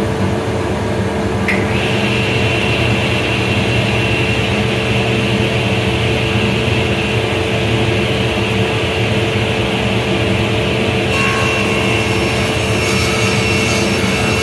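SawStop cabinet table saw running with its blade spinning, a loud steady hum with a high whine. About three-quarters of the way through, the sound grows brighter as the board starts into the blade.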